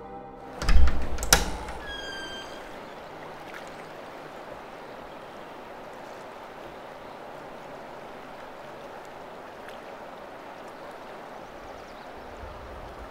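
A wooden house door is unlatched and swung open with two loud knocks about a second in, followed by a short squeak. Then a steady, quiet outdoor ambience hiss.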